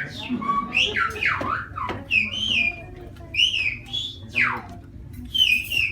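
Silbo Gomero, the whistled form of Spanish: a person whistling a run of short phrases of high sliding notes that rise and fall, one of them a long falling glide near the middle.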